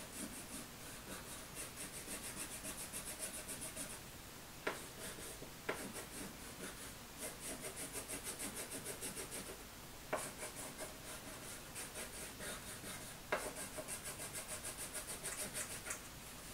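Crayon scribbling back and forth on paper held on a clipboard, colouring in squares: spells of quick, even strokes at about six a second, broken by pauses and a few sharp taps.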